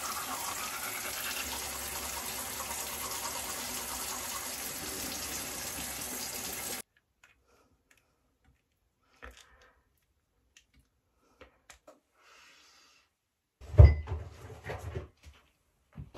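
Bathroom sink tap running steadily, cutting off abruptly about seven seconds in. Then near silence with a few faint clicks, and a short loud knock and clatter about fourteen seconds in.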